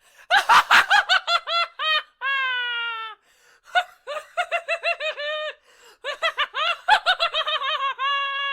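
Hysterical evil clown laugh from a high-pitched voice: three runs of quick, rising-and-falling ha-ha pulses. The first and last runs each end in a long, held note, and the last held note starts near the end.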